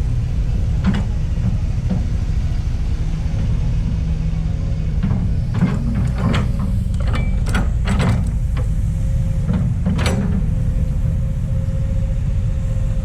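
Kobelco SK200 hydraulic excavator running with a steady low engine rumble, with a cluster of sharp metallic clanks in the middle.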